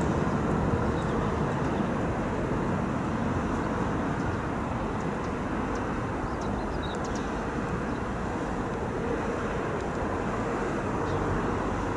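Airbus A320-271N jet at take-off power just after lift-off: its Pratt & Whitney PW1100G geared turbofans give a steady, deep rushing roar that eases off slightly as the jet climbs away.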